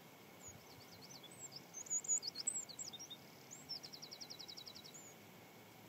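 A small songbird singing: a quick jumble of high, sliding chirps from about half a second in, then a fast, even trill of about a dozen notes, and one last chirp.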